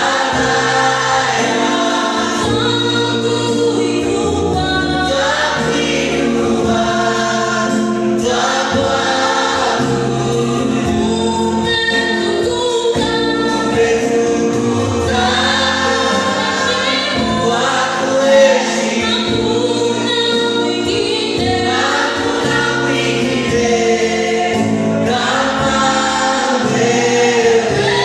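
A gospel choir singing a worship song with instrumental accompaniment.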